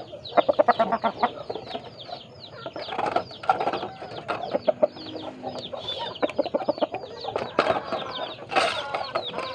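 Chickens in a coop calling: a steady stream of short, high, falling peeps over lower clucking, with a couple of sharp knocks near the end.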